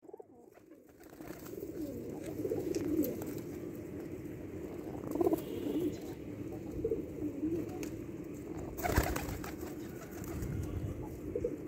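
A flock of domestic pigeons cooing continuously, many calls overlapping, with a few light clicks and one sharp knock about nine seconds in.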